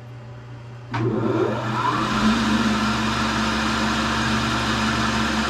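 Tool and cutter grinder's wheel spindle motor switched on with a click about a second in, winding up in pitch for about a second, then running steadily with a hum and an even hiss. The already-running work head motor hums underneath.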